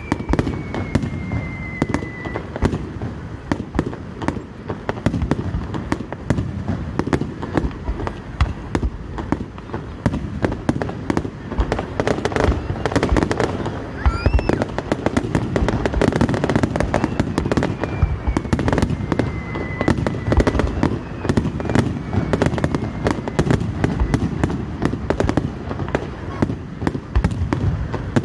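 Fireworks display: aerial shells bursting in a rapid, unbroken run of bangs and crackles, with a few faint whistles gliding in pitch.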